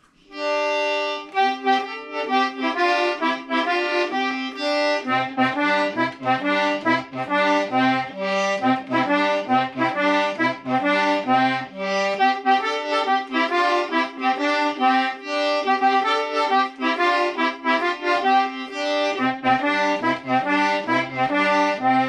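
Small button accordion (squeeze box) playing a tune: a melody on the treble buttons, with bass and chord buttons joining in about five seconds in.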